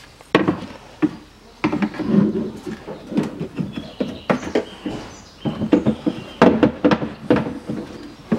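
Rear door lock mechanism, with its plastic handle frame and cables, knocking and rattling against the steel door shell as it is worked back into the door cavity by hand: a string of irregular knocks and clicks.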